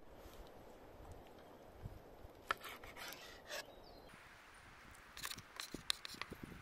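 A knife slicing raw chicken breast into strips on a wooden cutting board: soft cuts and light taps of the blade on the board, in two short runs about halfway through and near the end.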